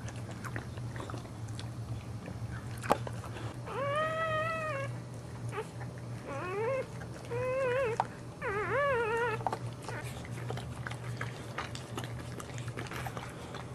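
Newborn Boxer puppy crying: four short, high-pitched mewling cries that rise and fall, about four to nine seconds in. Under them are small wet clicks of the mother licking it clean.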